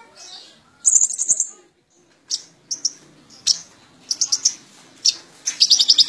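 Caged kolibri ninja, a sunbird, singing in bursts of quick high chirps and short trills, ending in a fast run of notes near the end.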